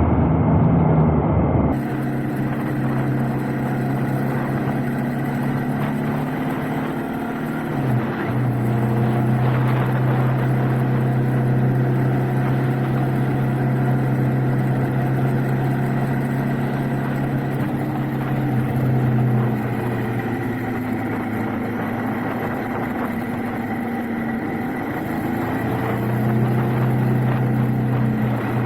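Triumph Trident 660's inline three-cylinder engine running under way at a steady road speed. It holds an even note that shifts pitch a few times as the throttle changes.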